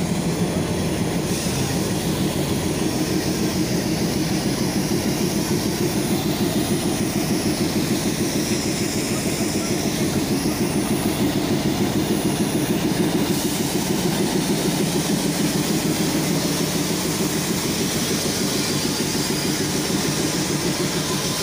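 Diesel locomotive engine idling steadily, a continuous low rapid throb.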